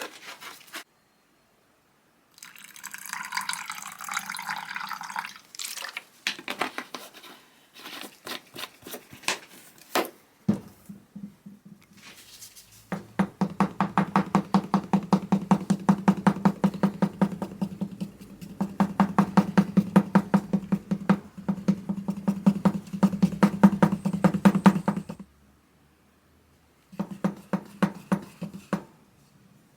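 A small electric power tool running in several short spells, with a steady low hum and rapid, evenly spaced clicking, about four a second.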